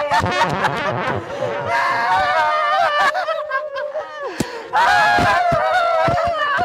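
Exaggerated laughter over background music.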